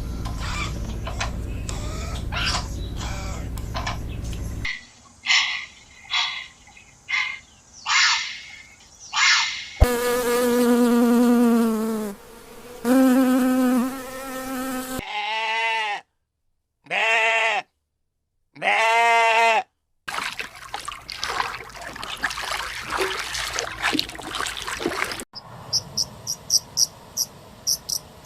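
A series of different animal calls cut one after another: short calls, long pitched calls, and three short pitched cries. Near the end comes a fast, even, high chirping of insects.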